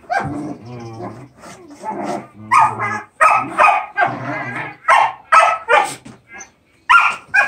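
Giant schnauzer puppies barking in play: a run of short barks and yips, bunched from about two to six seconds in and again near the end.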